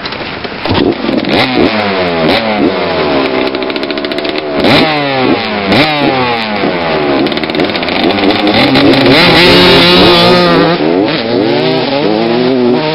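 Two two-stroke motocross bikes revving, throttles blipped again and again with sharp rises and falls in pitch. Around the middle one engine is held at high revs, and near the end the bikes ride off.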